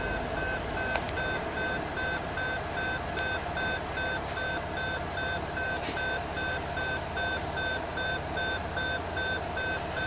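Vehicle warning chime beeping steadily about twice a second over the low hum of the Jeep's 3-litre diesel idling in gear.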